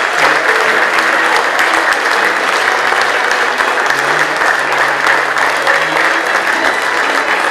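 A roomful of guests applauding steadily, a dense crackle of many hands clapping.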